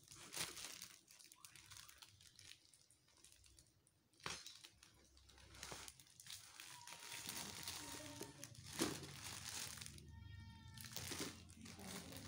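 Grey plastic courier mailer bag crinkling and rustling as it is handled and cut open with blunt scissors, with a few sharper crackles of the plastic.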